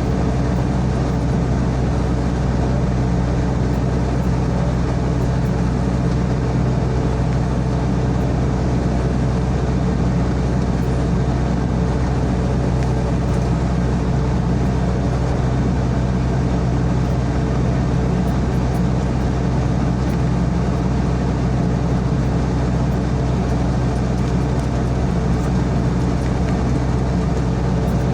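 SANY SY55C mini excavator's diesel engine running steadily at an even, unchanging pitch while the machine works.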